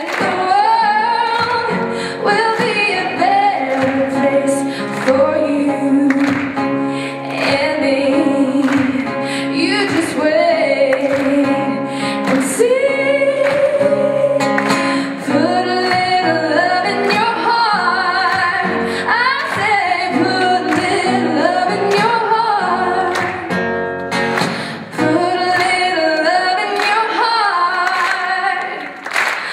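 Music: a woman singing over strummed guitar, with a steady beat.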